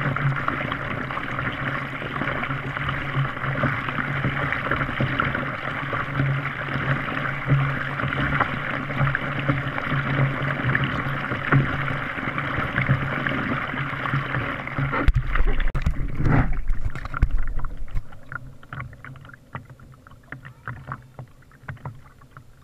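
Water rushing steadily along a kayak's hull just below the bow-mounted camera as the kayak glides. About fifteen seconds in there is a low rumble, then the rush dies away, leaving quieter small splashes and drips from the paddle and the water.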